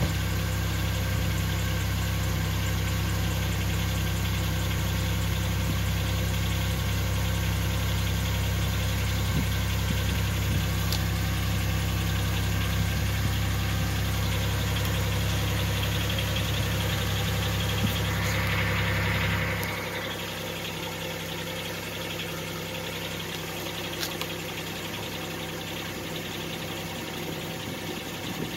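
Pontiac Grand Am GT's exhaust idling steadily at the tailpipes, a low-pitched engine note. About two-thirds of the way through it drops in loudness and loses much of its low end.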